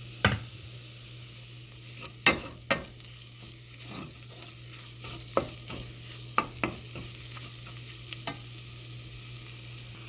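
Spoon stirring spices frying in oil in a pan, with a steady sizzle and about eight sharp knocks of the spoon against the pan.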